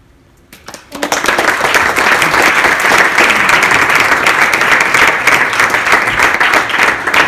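Audience applauding: a few scattered claps, then full, dense applause from about a second in.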